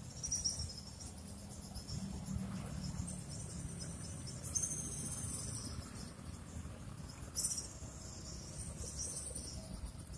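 Insects trilling, high-pitched, in repeated bursts of a second or more, over a low steady rumble.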